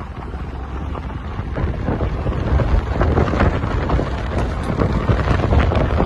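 Car driving on a gravel road: tyre rumble and crunching gravel with wind rushing past the microphone, getting louder about two seconds in.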